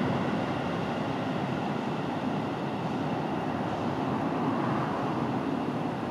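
Steady low background rumble, an even noise with no distinct events.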